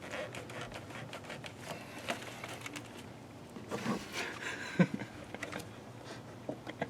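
Scattered clicks and knocks of plastic and metal as an engine's intake air tube is worked loose by hand, with one sharper knock about five seconds in.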